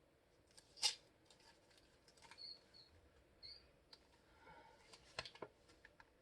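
Faint mouth clicks and smacks of someone chewing a small piece of white chocolate, in a quiet room. The sharpest click comes about a second in, and a cluster of clicks comes near five seconds.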